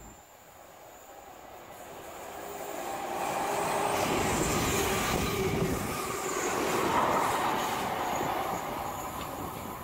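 Electric multiple unit, in London Northwestern green and grey and likely a Class 350 Desiro, approaching and passing close by at speed on a tight curve. It builds over about three seconds to a loud, steady rush of wheels on rail and air, with wheel squeal from the curve.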